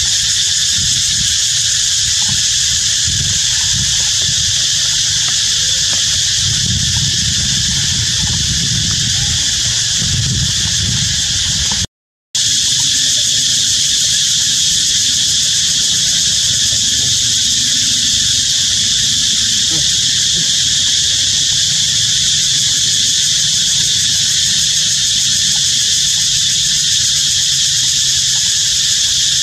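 Steady, high-pitched insect drone, unchanging throughout, broken by a brief dropout to silence about twelve seconds in.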